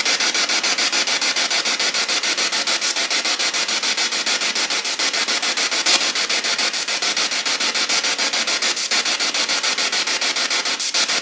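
Radio-scan static from a ghost box played through a small JBL portable speaker. It is a steady hiss chopped into fast, even pulses several times a second as the receiver sweeps through stations, with one brief louder blip about six seconds in.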